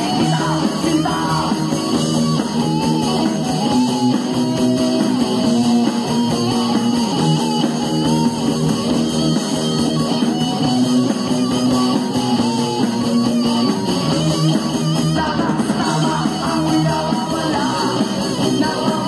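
Rock song with singing and guitar playing throughout.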